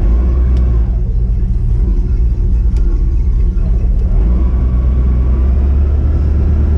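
Charter fishing boat's engine idling at the dock: a steady low rumble that grows a little stronger about four seconds in.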